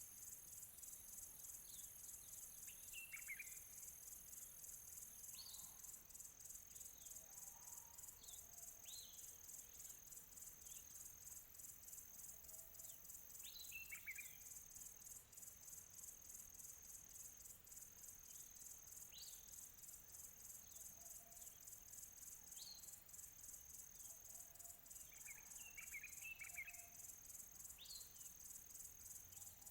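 Faint chorus of crickets, a steady high pulsing trill, with scattered short bird calls of quick falling notes throughout.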